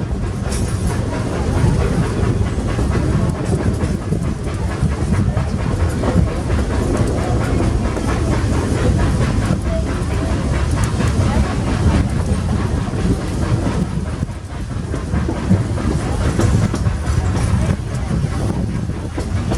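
Narrow-gauge steam train in motion, heard from on board the passenger cars: a steady rumble of the running train, with wheels clacking over the rail joints.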